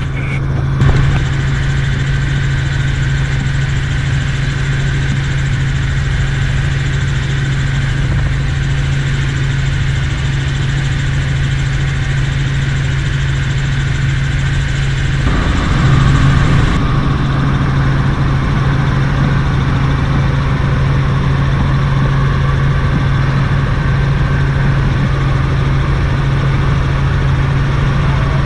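Helicopter engine and rotors droning steadily, heard inside the cabin in flight: a loud, constant low hum with no rise or fall in pitch. The character of the noise shifts slightly about halfway through.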